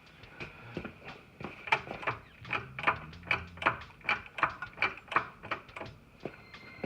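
A run of sharp, evenly spaced clicks, about three a second, starting about a second and a half in and stopping a little before the end.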